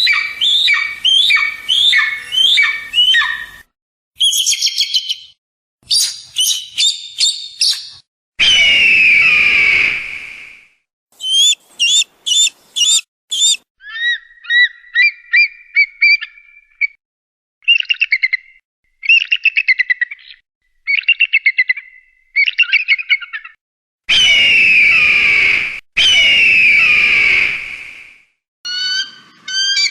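Eagle calls in a string of separate clips with sudden cuts between them. Rapid series of high, chattering whistled notes alternate with long, hoarse screams of about two seconds each, two of them back to back about two thirds of the way through.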